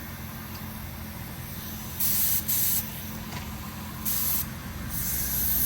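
Compressed-air paint spray gun hissing in short bursts as the trigger is pulled for each pass: two brief bursts about two seconds in, another about four seconds in, and a longer one near the end.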